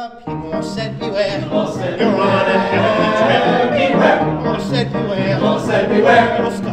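A musical theatre cast of men and women singing a chorus number together, many voices at once, cutting in suddenly.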